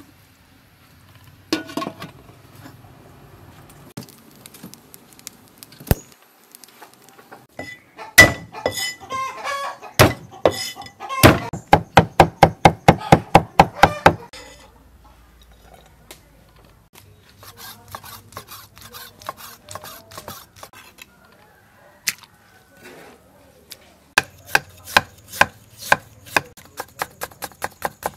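Cleaver chopping on a wooden cutting board, mincing garlic and cutting ginger. Scattered knocks give way to a fast, even run of chops, about five a second, from about 11 to 14 seconds in. Steady chopping at about four strokes a second starts again near the end.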